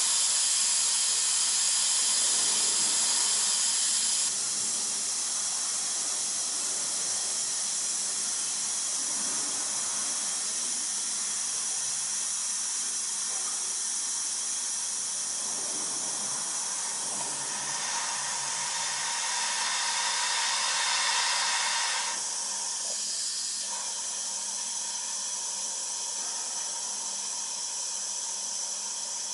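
Air hissing steadily out of the bleed valve on a cast iron radiator as the drained hot-water heating system refills, purging the air before water reaches the vent. The hiss drops a step about four seconds in, grows louder again for a few seconds later on, then drops back.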